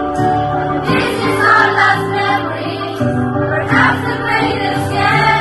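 Children's choir singing together, holding long notes over music.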